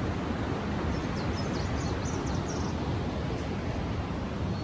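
Steady rushing outdoor noise, with a few faint, high bird chirps about one to two and a half seconds in.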